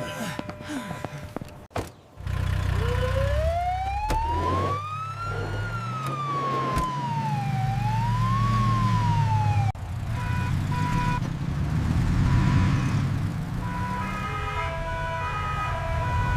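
Emergency vehicle siren sound effect over a low vehicle engine hum that starts about two seconds in: one slow wail that rises, falls and rises again, then cuts off sharply. Steady held tones at several pitches follow for the rest of the time.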